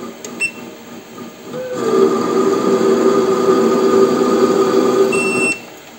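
Mini lathe with an electronic leadscrew making a threading pass. A loud steady whine from the leadscrew drive comes in about two seconds in with a short rise in pitch, then cuts off by itself near the end as the carriage stops at the end of the thread. Short high beeps from the controller sound about half a second in and again just before the whine stops.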